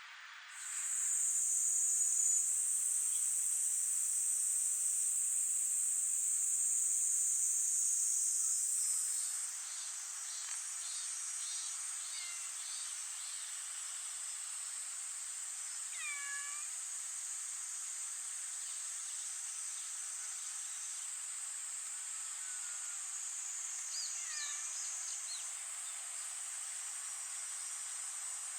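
A stray cat meows a few times, short high-pitched calls about halfway through and again near the end, over a steady high-pitched insect chorus. The chorus is louder for the first nine seconds, then drops to a lower level.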